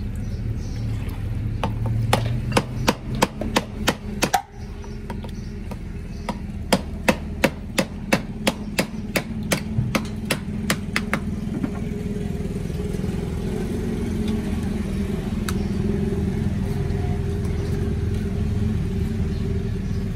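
Two runs of quick, sharp metal knocks, about three a second, as a long metal blade strikes meat over a cooking pot. A steady low engine hum continues underneath and is left on its own in the second half.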